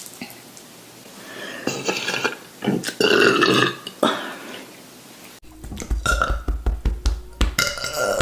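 A woman burping after drinking fizzy Prosecco: short burps about two seconds in, then one long, loud burp about three seconds in. After a sudden cut, a run of quick clicks and taps follows.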